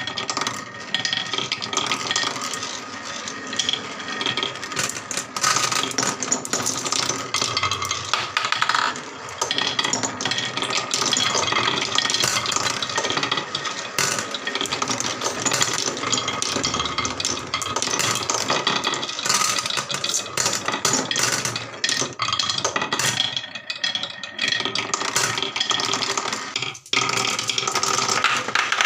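Marbles rolling and clattering down a HABA wooden marble run: a dense, continuous rattle of many small knocks and clicks with a faint ringing, broken by a brief gap near the end.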